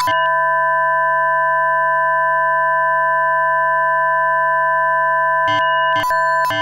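Dexed FM synthesizer, a software emulation of the Yamaha DX7, sounding one steady sustained tone made of a few fixed pitches. Near the end the sound breaks into quick short stuttering changes.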